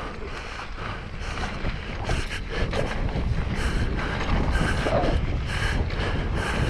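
Mountain bike rolling down a dirt trail, with wind buffeting the camera microphone and the clatter of tyres and bike over the ground. It gets louder about two seconds in.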